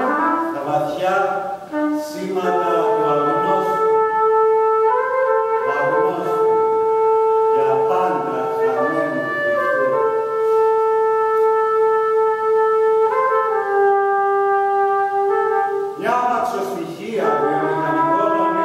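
Solo trumpet playing. It starts with short, quick phrases, then holds several long notes of a few seconds each, the last one lower, then breaks into quicker phrases again near the end.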